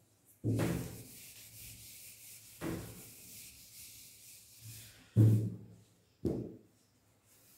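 A sponge whiteboard duster rubbing across a whiteboard to wipe off marker writing. It goes in a few strokes: a long steady rub through the first half, then two short wipes near the end.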